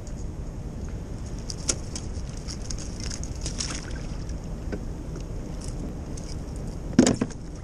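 Steady wind and moving-water noise, with scattered light clicks of gear being handled and a sharp knock, twice in quick succession, near the end.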